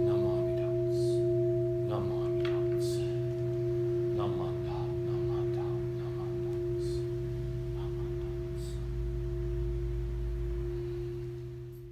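A Buddhist kin, the black bowl bell in front of the altar, ringing on with one steady tone and a fainter higher overtone, slowly fading. Scattered light clicks and rustles of prayer beads and the service book being handled sound over it.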